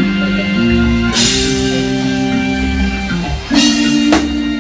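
Live band playing: held electric guitar notes over a drum kit, with cymbal crashes about a second in and twice near the end.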